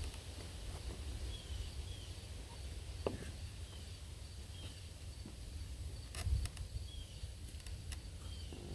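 Outdoor ambience: a short, high, falling chirp repeats every second or so over a low rumble, with a few faint knocks about three and six seconds in.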